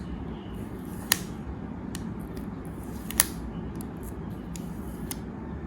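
Small parts and tools being handled while dust is cleared from a watch glass: two sharp clicks, about a second and about three seconds in, and a few faint ticks, over a steady low hum.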